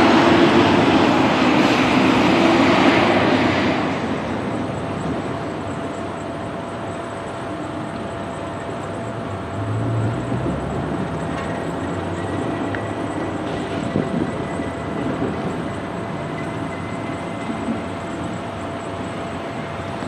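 A train passing, its rolling rumble loud at first and dying away about four seconds in, leaving a quieter steady background.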